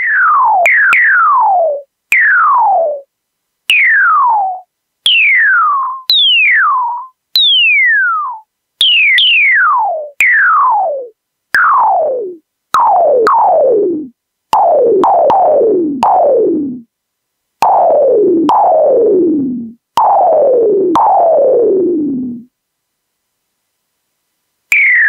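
Synthesized electronic drum hits from a Teensy 3.2 drum synthesizer, triggered by finger taps on a piezo disc: about twenty hits, each a click followed by a quick downward pitch sweep like a synth tom or zap. The sweep changes from hit to hit as the potentiometers are turned, ending lower and ringing longer in the second half.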